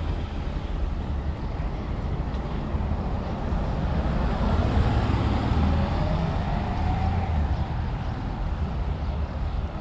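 A motor vehicle passing close by: a steady engine and road noise that swells to a peak about halfway through and then fades.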